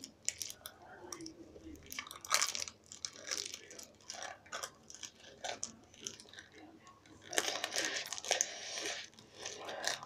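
Irregular crinkling and rustling close to the microphone, in short bursts: brown packing tape being handled and pressed over a mouth. It is loudest about two seconds in and again over a longer stretch near the end.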